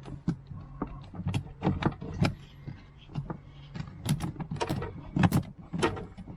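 Small laundry spin dryer (centrifuge) running with a steady low hum, its drum and housing giving off irregular knocks and clatters.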